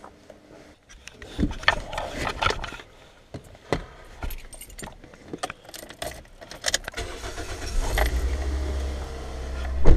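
Keys jangling amid a string of clicks and knocks, then a car engine starts about eight seconds in and keeps running with a steady low hum.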